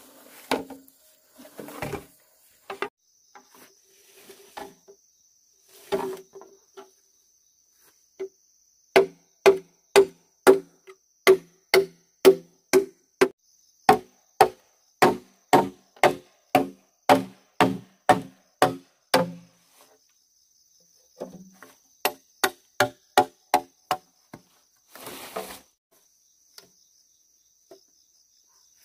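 Repeated sharp strikes on wood, about two a second for around ten seconds, then a shorter, softer run after a brief pause. A high, steady insect trill starts a few seconds in and carries on underneath.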